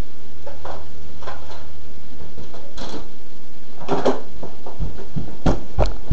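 Kitchen clatter: a string of knocks and clunks as a glass mixing bowl, a wooden spoon and other items are handled on the counter, over a low steady hum that weakens about halfway through.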